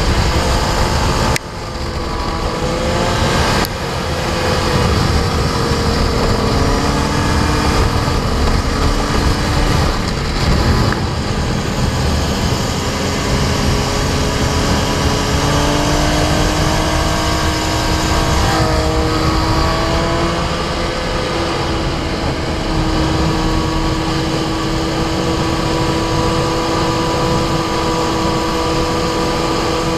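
Sport motorcycle engine running hard at speed, heard from a camera mounted on the bike under heavy wind rush. The throttle is shut sharply about a second and a half in, then the engine picks up again. After that the engine note glides slowly up and down as the bike goes through the corners.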